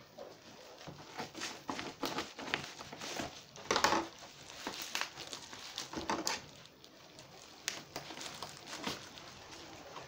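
Plastic bubble wrap crinkling and crackling as scissors cut into a tightly wrapped parcel and hands pull the wrap apart, in irregular snips and rustles. The loudest crackle comes about four seconds in.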